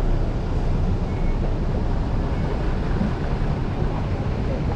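Steady low rumble of city street ambience, with no distinct events standing out.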